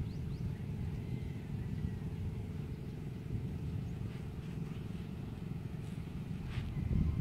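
A steady low rumble throughout, with a brief faint higher sound about six and a half seconds in.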